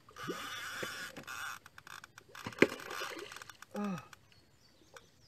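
Fishing rod and reel during the fight with a hooked blue catfish: a hiss for about a second and a half, then a run of small clicks with one sharp click in the middle. A short grunt of a man's voice comes near four seconds.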